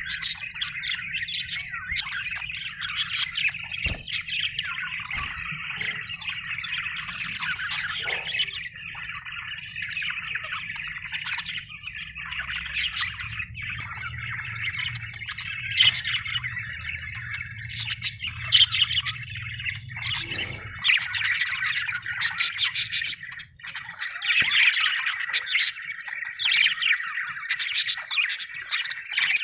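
Budgerigar chirping and warbling continuously, with frequent sharp high chirps, the happy chatter of a contented budgie.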